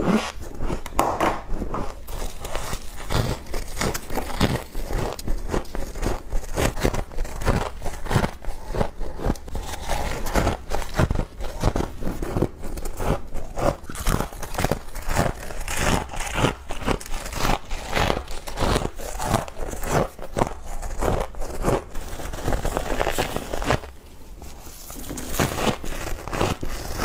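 Close-miked biting and chewing of frost: a rapid, irregular run of crisp crunches, easing off briefly about 24 seconds in.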